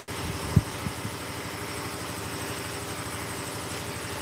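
Shop air compressor running with a steady hum, with two short low thumps near the start.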